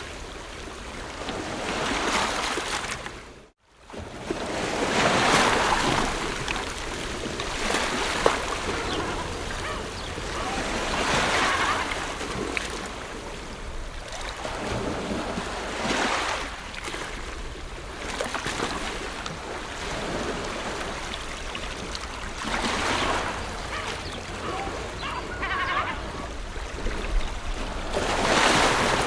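Ocean waves breaking and washing up the shore, swelling and falling back every few seconds. There is a brief cut to silence about three and a half seconds in.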